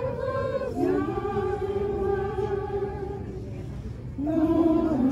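A small group of women singing a cappella together, slow and drawn out, holding long notes, with a brief break near the three-second mark before the next phrase starts.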